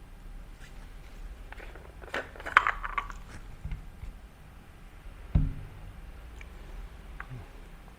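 Parts of a portable espresso machine being handled: a cluster of clicks and scrapes about two to three seconds in, a dull thump a little after five seconds, then a few faint ticks.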